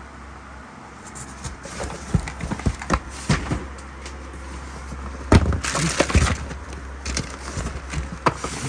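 Cardboard product boxes and plastic packaging being handled and shuffled in an open shipping carton: irregular rustling, scraping and light knocks, with a louder burst of crinkling and knocks a little past the middle.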